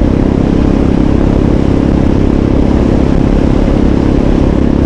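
Motorcycle engine running steadily at cruising speed while riding, its level even throughout with no rise or fall in revs.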